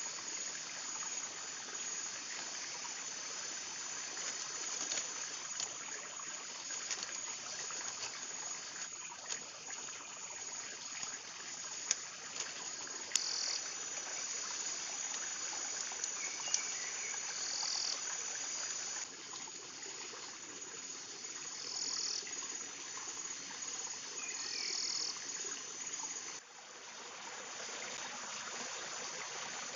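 Insects buzzing in a high-pitched drone that drops out and comes back in stretches, over a steady rushing hiss, with a few sharp ticks about twelve seconds in.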